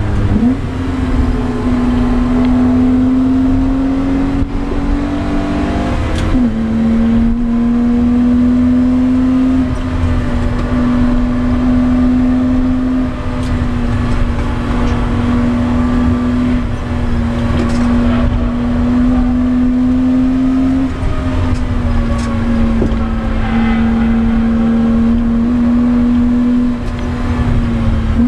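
BMW E30 325i's 2.5-litre straight-six at high revs, heard from inside the cabin under hard acceleration. The note climbs for about six seconds, then drops sharply with a quick gear change. After that it runs near-steady with small lifts and dips, over steady tyre and wind noise.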